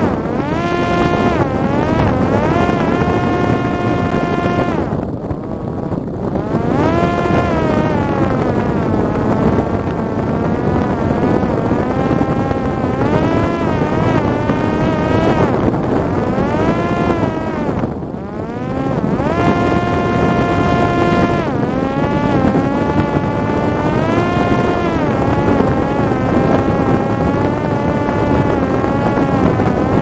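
Parrot Disco fixed-wing drone's electric pusher motor and propeller whining in flight, the pitch rising and falling with the throttle. It drops away briefly about five seconds in and again around eighteen seconds, over a steady rush of wind noise.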